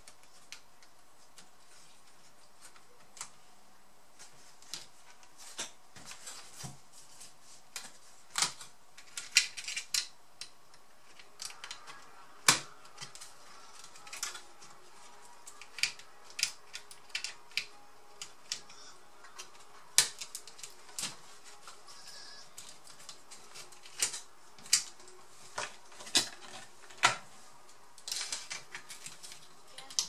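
Irregular sharp clicks, taps and snaps of plastic laptop parts being handled and pressed together while a Lenovo G50-70 laptop is reassembled, some louder than others.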